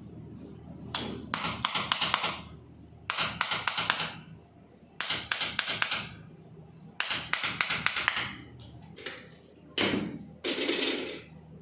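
Quick bursts of tapping on a patient's body during chiropractic treatment, four to six rapid taps in each burst, about every two seconds. A thud and a short rustle come near the end.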